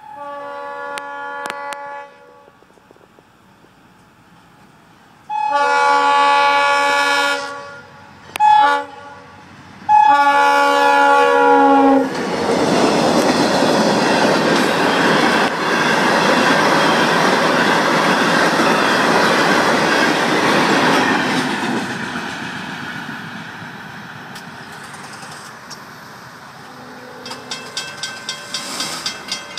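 Florida East Coast Railway diesel locomotive sounding its multi-note horn for the grade crossing: long, long, short, long. The locomotive then passes close by in a loud rush of engine and wheel noise, and the ballast cars clatter over the rail joints as the sound fades. Near the end a crossing-signal bell rings rapidly.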